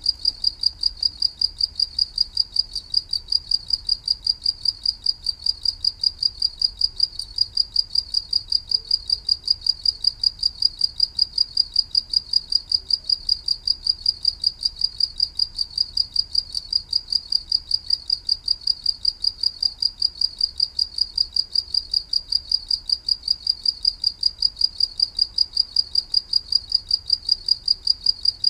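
A cricket chirping: a high-pitched chirp repeated in a steady, evenly spaced, rapid train without a break.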